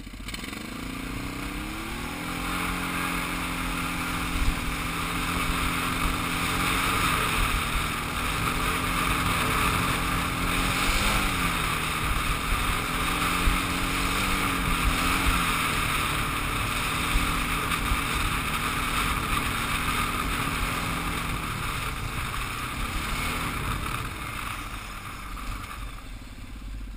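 Quad ATV engine pulling away, its pitch climbing over the first two seconds, then running at a fairly steady cruise with a few brief rises in revs, and easing off near the end. A steady rushing noise runs beneath the engine.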